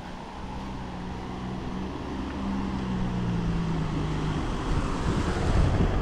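A motor vehicle's engine humming low and steady, sinking slightly in pitch and fading out about four and a half seconds in, while a rushing noise grows louder towards the end.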